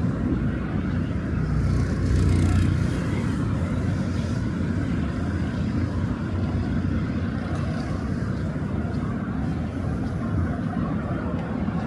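City street ambience: a steady low rumble of road traffic, with one vehicle passing a little louder about two seconds in.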